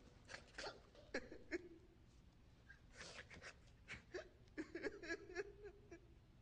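Faint scattered taps and clicks of footsteps on a hard floor, with a few soft murmured vocal sounds.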